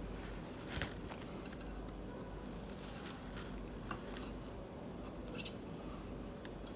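Light scraping and a few sharp clicks of small hand tools working on a PS5 fan's wiring, over a steady low hum.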